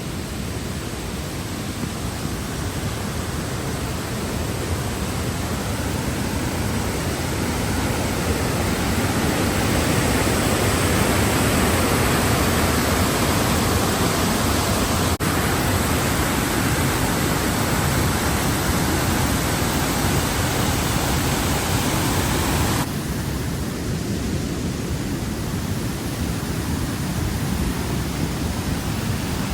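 Steady rushing water noise of Fall Creek Falls, a tall plunge waterfall. It grows louder toward the middle, then drops suddenly in level about three-quarters of the way through.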